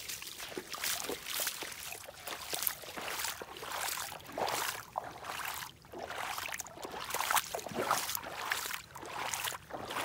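Boots wading through shallow, muddy floodwater, with a splash and slosh at each step in an uneven run.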